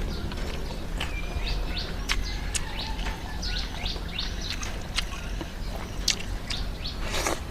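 Birds chirping in short, repeated calls over a steady low hum, with a few sharp clicks scattered through.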